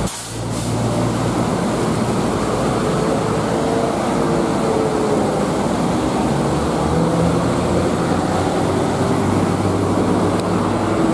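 Steady traffic on a wet road: buses, trucks and cars going by with a constant tyre hiss and a low, wavering engine drone.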